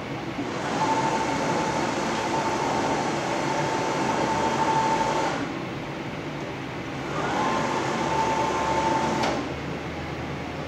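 Gerber Sabre 408 CNC router's axis drive motors whining steadily as the gantry traverses the table, in two moves: a longer one starting just under a second in and a shorter one about seven seconds in, over a constant machine hum.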